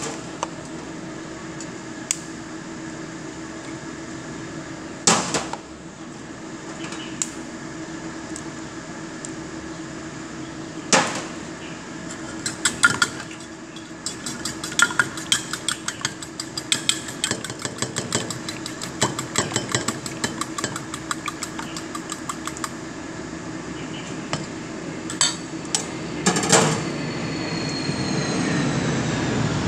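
A fork or whisk rapidly beating eggs in a stainless steel bowl: a fast run of metallic clinks lasting about ten seconds, after a few single sharp knocks on the bowl. Near the end a louder steady rushing noise rises.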